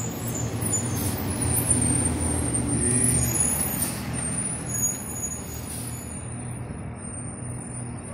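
Diesel engine of an International box truck driving past slowly, growing louder to a peak a few seconds in and then easing off.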